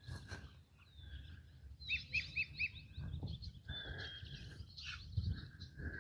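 Several small birds chirping and calling, with a quick run of four chirps about two seconds in, over a steady low rumble.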